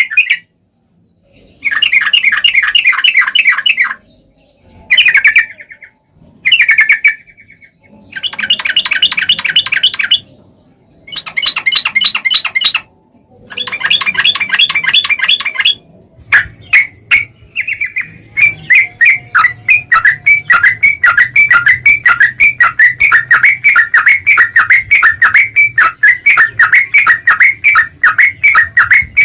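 Yellow-vented bulbul (trucuk) calling in several bursts of rapid, repeated chattering notes with short pauses between, running into a continuous fast chatter from about halfway through.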